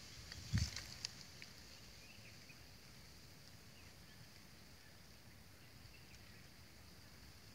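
Quiet dry-bush ambience: a steady high insect buzz, with a few brief knocks and scrapes between half a second and a second in, and faint scattered bird chirps.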